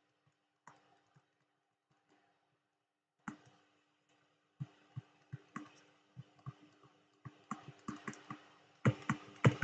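Stylus tip tapping and clicking on a touchscreen as words are handwritten, an irregular run of short sharp clicks that starts about three seconds in and grows busier near the end.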